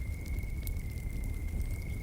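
Wood fire crackling with scattered small pops over a low steady rumble, while an insect trills on one unbroken high tone.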